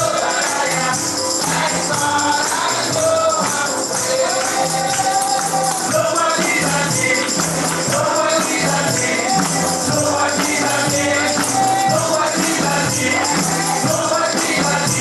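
Gospel praise music in church worship: voices singing together over a tambourine shaking steadily.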